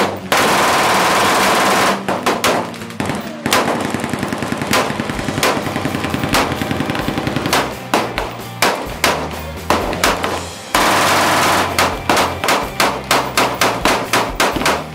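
Gunfire from a firing line: an MG 42 machine gun fires two long, very fast bursts, one right at the start and one about eleven seconds in. Between the bursts an AR-15 fires many single shots in quick, uneven succession.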